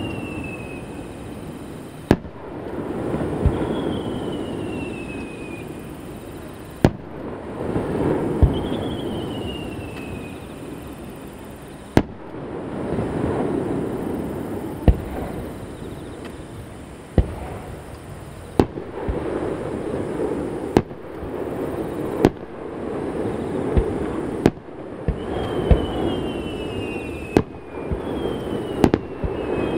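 Aerial fireworks bursting one after another, a sharp bang every couple of seconds. Each bang is followed by a long rumbling echo off the surrounding mountains. Several short whistles fall in pitch between the bangs.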